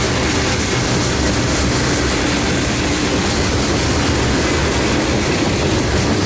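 Freight train of tank cars passing at close range: steady noise of steel wheels rolling over the rails.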